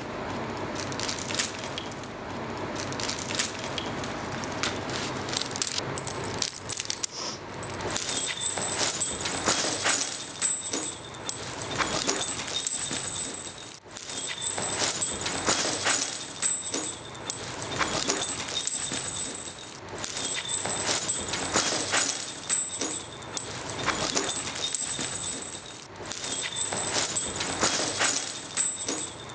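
Heavy metal chains and padlocks jangling and clinking continuously, quieter for the first several seconds and then denser. The clinking breaks off sharply for a moment about every six seconds.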